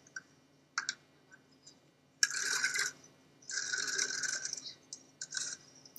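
Socket wrench with extension working at a lawn mower's oil drain plug: two short bursts of metal clicking and scraping, about two and three and a half seconds in, with a few light clicks around them.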